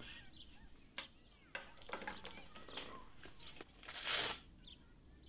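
Faint small birds chirping now and then in the background, with a short rustling hiss about four seconds in.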